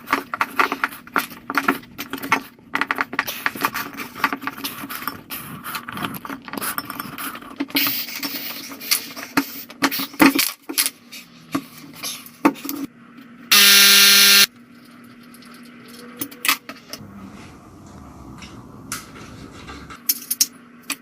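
Many small metallic clicks, taps and scrapes of hand tools and scooter parts being handled during reassembly. About two-thirds of the way through there is a single loud, buzzy electronic beep lasting about a second, followed by a few quieter clicks.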